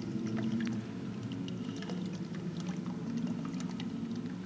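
Liquid dripping and trickling in faint scattered drops, the sound effect for blood dripping onto a shattered armour, over a low steady hum.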